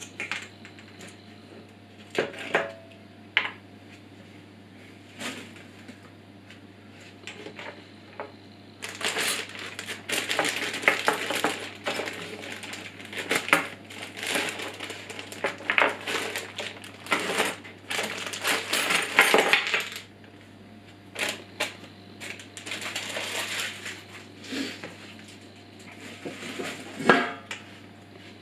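Bag of metal nuts, bolts and brackets being cut open and handled: crinkling plastic and small metal parts clinking together. Near the end the parts are tipped out onto the table with a sharp clatter.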